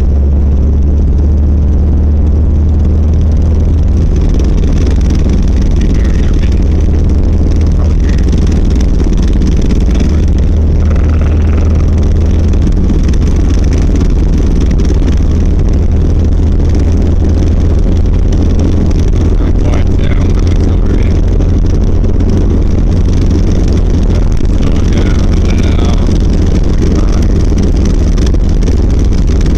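1990 Volvo 740 running with a steady low rumbling vibration and rattle from its driveshaft, which the owner traced to a worn center driveshaft support and/or its bearing.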